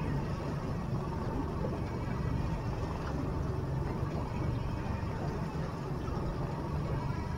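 Small boat's outboard motor running steadily at trolling speed, a low even drone with the wash of water around the hull.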